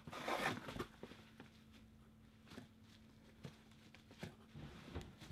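Cardboard packaging being handled as a boxed Funko Pop figure is lifted out of a cardboard shipping box: a burst of rustling and scraping in the first second, then scattered light taps and scrapes.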